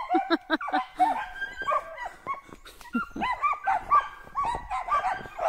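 Several hunting dogs barking at a squirrel up in the trees, quick overlapping barks several times a second with a few higher yelps among them.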